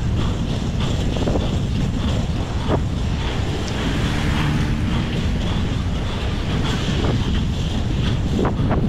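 Heavy wind buffeting on the microphone of a camera moving at racing speed with inline skaters, over a steady low rumble of skate wheels on asphalt, with a few short clicks scattered through it.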